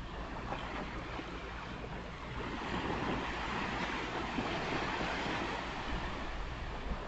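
Ocean surf on a beach: a steady wash of waves, swelling louder as a wave breaks and runs in about two and a half seconds in.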